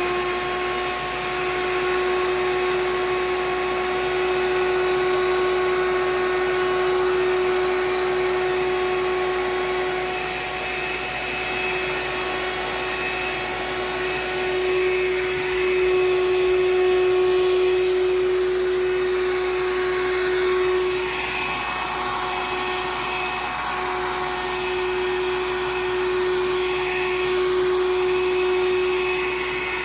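Black & Decker Dustbuster cordless handheld vacuum running steadily with a high motor whine over an airy hiss, its intake jammed with cereal.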